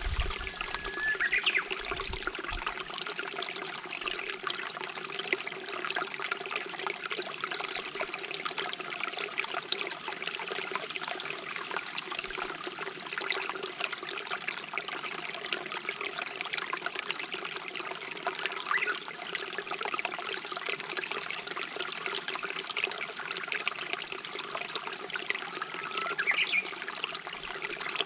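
A shallow stream babbling and trickling steadily. A Japanese bush warbler calls twice, near the start and near the end, each time a held note followed by a rising flourish.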